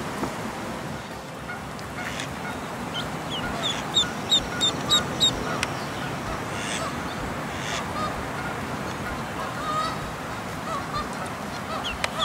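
Newborn mallard ducklings peeping: a run of short, high-pitched peeps about four seconds in, with a few scattered calls later over a steady outdoor background.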